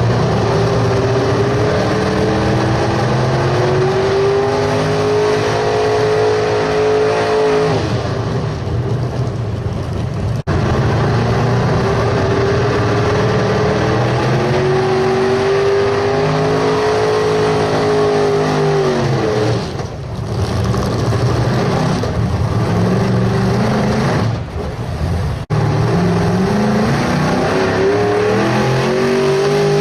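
Super stock 4x4 pulling truck's engine running flat out under load on a pull. Its pitch holds high and then sags as the truck bogs down, three times over, with abrupt breaks between.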